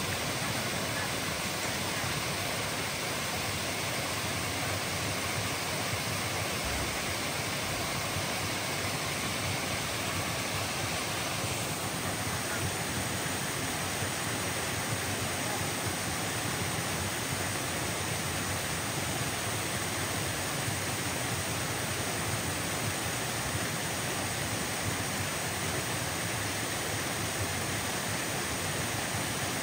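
Steady, even rush of stream water cascading down rock slabs into a pool.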